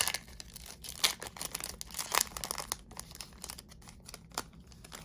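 Foil trading-card booster pack wrapper crinkling and crackling as it is handled. The crackles are densest in the first three seconds, then thin out.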